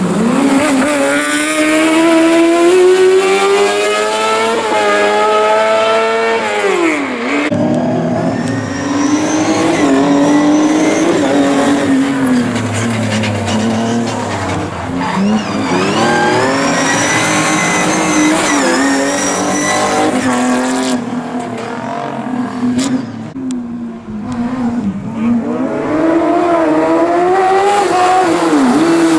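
Competition rally cars at full effort on a tarmac sprint stage: a single-seater buggy's high-revving engine climbs steeply through the revs, drops sharply about seven seconds in as it lifts or shifts, and then keeps rising and falling through gear changes and braking. A hatchback rally car passes in the middle. The engine sound eases briefly late on before another buggy accelerates hard near the end.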